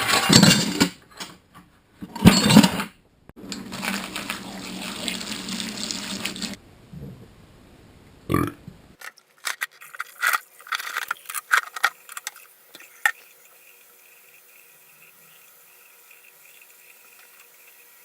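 Cut steel pieces clanking as they are dropped into a bucket, then liquid poured in and splashing around the steel, ending with a few short splashes and drips. The liquid is vinegar, for soaking the steel to loosen its mill scale.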